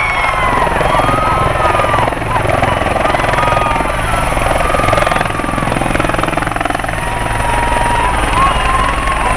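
Helicopter coming in to land and touching down, rotor and turbine engine running loud and steady, with a thin high turbine whine above.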